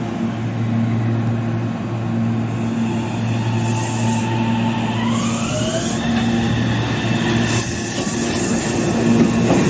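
Meitetsu 2200-series limited express electric train pulling away from a station platform. Over its steady low hum, its VVVF inverter and traction motors give a whine that rises in pitch as it gathers speed. Near the end come clicks as the wheels run over rail joints.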